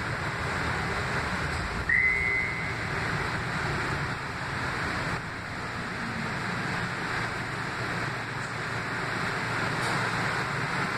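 Steady running noise heard inside a 2005 Kinki Sharyo light rail vehicle rolling along street track, with a brief high squeal about two seconds in.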